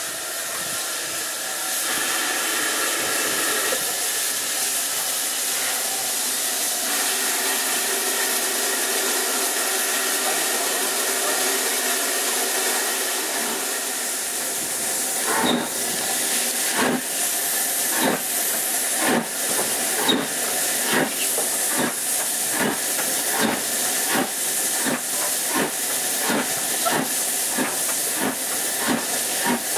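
Steam locomotive No. 1744, a Gresley N2 0-6-2 tank engine, hissing steam. From about halfway it pulls away, its exhaust chuffs starting slowly and quickening as it gathers speed.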